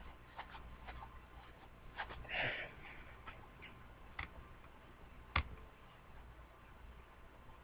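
A few scattered clicks of a computer keyboard and mouse, the loudest about five and a half seconds in, with a short breathy rush about two and a half seconds in.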